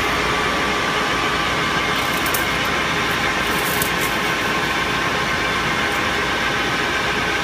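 Metal lathe running steadily with a faceplate-mounted slug of aluminum, a constant motor hum with a faint steady whine.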